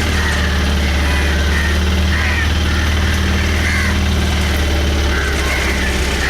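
A boat's engine running steadily, its low hum easing slightly about five seconds in, with short bird calls sounding repeatedly above it.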